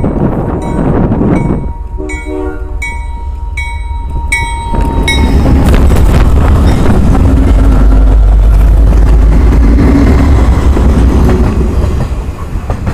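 A diesel freight locomotive's air horn sounds one long chord from about two seconds in to about five seconds in, over a repeated dinging about twice a second. Then CN's lead GE C44-9WL and the following diesel locomotives pass close by, their engines running in a loud low rumble that eases near the end.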